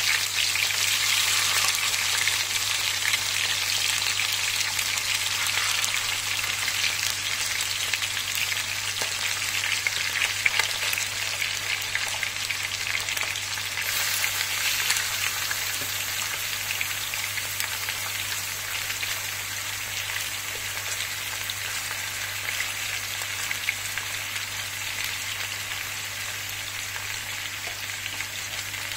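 Food frying in a sac tava, a wide, shallow steel pan: a steady dense sizzle with fine crackles that slowly dies down.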